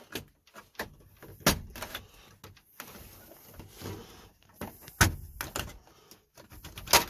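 Plastic dash trim of a truck being pulled loose and handled: a string of sharp clicks and knocks as the trim clips let go, three of them loud, about a second and a half in, at about five seconds and near the end, with lighter clicks between.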